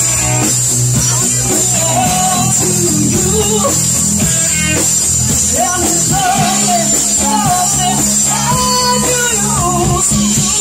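Live rock band playing: a woman singing lead over electric guitar and drums, with steady low bass notes underneath.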